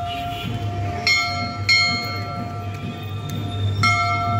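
Hindu temple bells struck by hand, ringing out three times: about a second in, again half a second later, and near the end, each strike ringing on and slowly fading.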